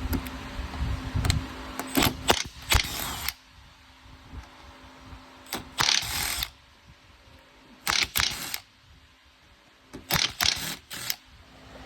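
Fasteners being worked loose on an EZGO RXV golf cart's factory charging receptacle to take it off: short bursts of mechanical clicking and whirring in about four groups, a couple of seconds apart.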